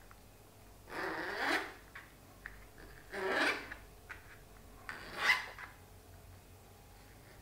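A fork scraping across a plastic cutting board as it shreds green plantain peel into strands, in three short rasping strokes about two seconds apart, with a few light ticks between them.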